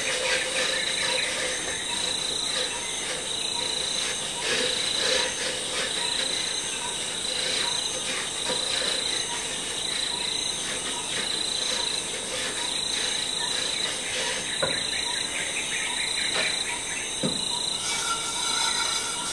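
A steady, high-pitched insect chorus with a faint chirp repeating about twice a second, over a hiss. Now and then a pan or utensil clinks or knocks.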